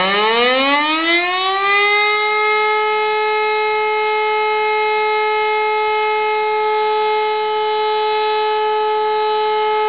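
E57 electric motor siren sounding the Feueralarm (fire alarm) test signal: it finishes winding up, its pitch rising for about the first two seconds, then holds one steady, loud tone.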